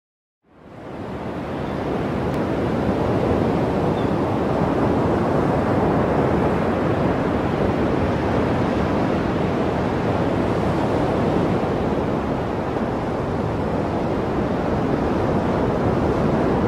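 Ocean surf breaking and washing over a rocky shore, a steady rushing that fades in from silence about half a second in.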